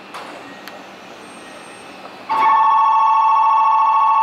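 Electronic station departure bell ringing with a fast two-tone trill, starting about two seconds in and lasting about three seconds: the signal that the train's doors are about to close. Before it, two faint clicks over low station noise.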